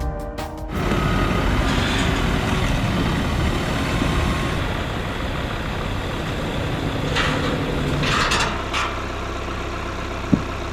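A steady engine rumble, with a few short bursts of hiss about seven to nine seconds in and a sharp click near the end.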